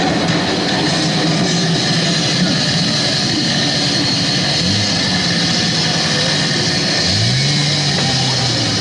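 A chainsaw engine running with a loud, rough drone. It revs up and down briefly about halfway through and again near the end.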